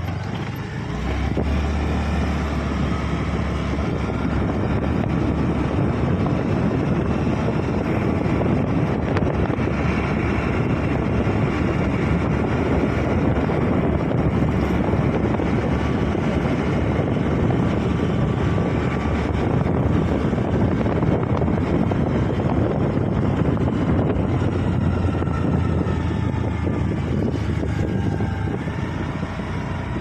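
Wind rushing over the microphone of a moving two-wheeler, mixed with its engine running, the engine note shifting in pitch now and then.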